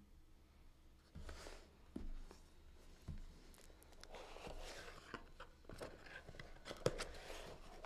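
Faint rustling and a few light knocks of a small cardboard box being picked up and handled on a desk.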